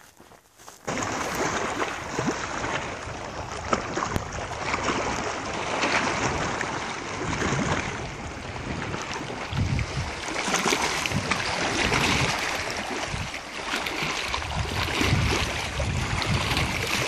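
Wind-driven waves on a lake, choppy water splashing and lapping at the shore, with wind gusting on the microphone. It starts suddenly about a second in, after near silence, and the gusts get heavier in the second half.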